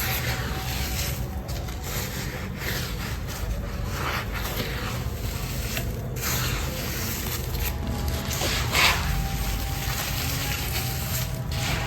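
Dry sand-cement crumbling and rubbing, a continuous gritty crackle that is loudest about nine seconds in.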